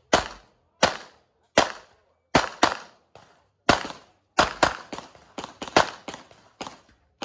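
Handgun shots fired in a rapid, uneven string, about a dozen loud reports with some quick pairs and fainter shots between them: a competitor shooting a practical shooting stage.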